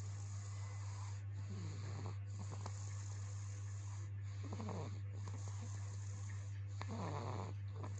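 A person snoring in sleep: three snores about two and a half seconds apart, the last one loudest near the end, over a steady low hum.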